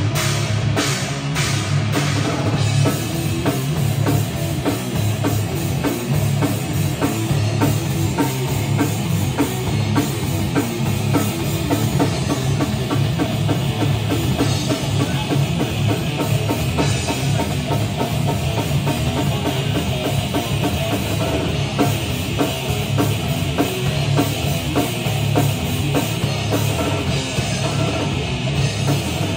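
Live rock band playing loud and without a break: two electric guitars over a drum kit.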